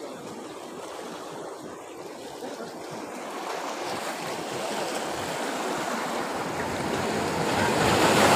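Sea waves surging and washing between the concrete tetrapods of a breakwater, a steady rushing that grows louder from about three seconds in.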